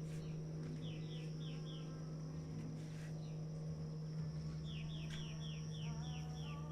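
A bird singing runs of quick falling chirps: a short run of four about a second in, and a longer run of about eight near the end. Under it runs a steady low hum and a faint, steady high tone.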